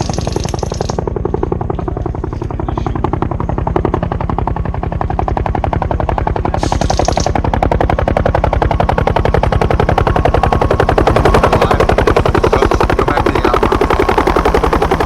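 Airsoft minigun firing one long unbroken stream of rapid shots, a fast even rattle that grows louder in the second half.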